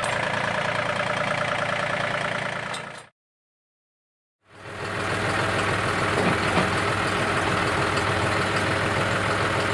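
John Deere 2032R compact tractor's diesel engine idling steadily. It fades out about three seconds in, then after a second and a half of silence a similar steady engine sound fades back in.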